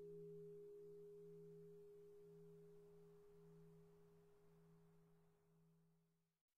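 The long, fading hum of an 820 kg church bell tuned to F3, cast in 1515. It is a few steady pure tones, the deepest one pulsing slowly about once a second. It grows steadily weaker and dies out near the end.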